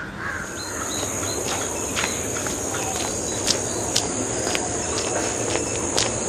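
A steady high-pitched insect drone, with boots stepping on a dirt road about twice a second.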